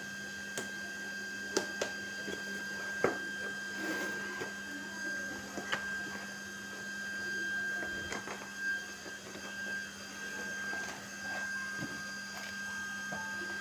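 Cardboard laptop box and its white protective sheet being handled: scattered taps, clicks and soft rustles, the sharpest about one and a half and three seconds in. A steady electrical hum runs underneath.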